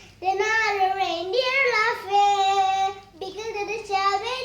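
A child singing a melody, with some notes held for about a second.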